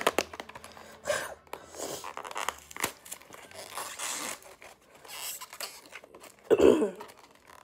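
Cardboard box of Pretz snack sticks being torn open by hand: crisp tearing, ripping and crinkling of the packaging in short irregular bursts, with a louder short burst near the end.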